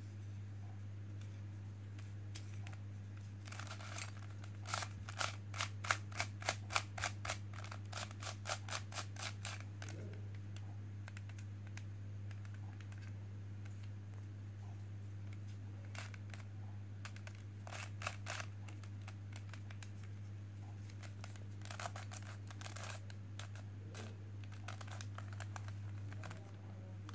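Plastic clicks from an octagonal barrel 3x3x3 puzzle cube being handled and turned: a quick run of clicks, about three to four a second, from about four to ten seconds in, then a few scattered clicks later. A steady low hum runs underneath.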